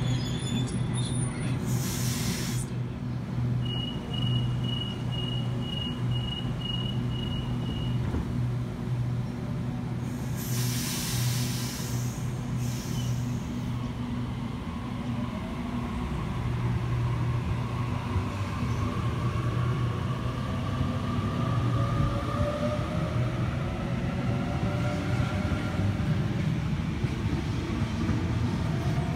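Sydney Trains Waratah double-deck electric train at the platform and pulling away: a steady low hum, a short run of high beeps about four seconds in, bursts of air hiss around two seconds and again around ten to twelve seconds in, then a rising traction motor whine from about sixteen seconds as it gathers speed.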